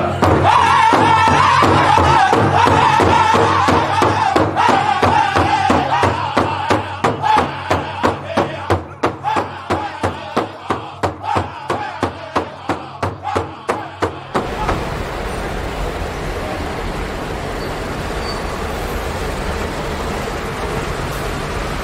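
A powwow drum group singing in high voices while beating a large shared hand drum with sticks in a steady beat; the singing fades and the drum carries on alone. About two-thirds of the way through it cuts abruptly to a steady hum of city traffic.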